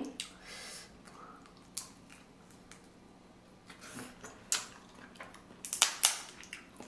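Close-miked eating sounds of a seafood boil, with shellfish handled and chewed in sauce. Scattered sharp clicks and short crackles, the loudest cluster about six seconds in.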